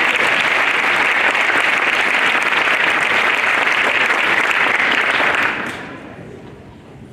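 Audience applauding, a steady clapping that dies away about five and a half seconds in.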